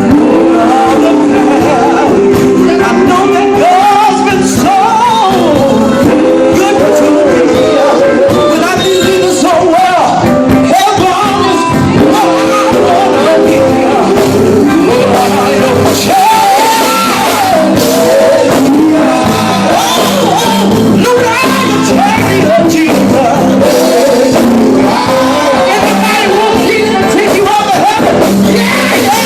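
Gospel group singing over a band: continuous music with lead and backing voices.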